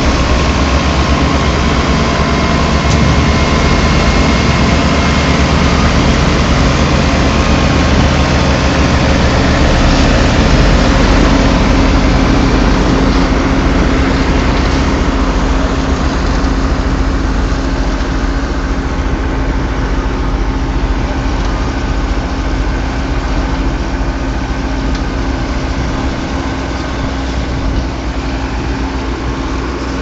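Heavy engines of road-paving machinery running steadily, a loud continuous engine drone that gradually eases in the second half.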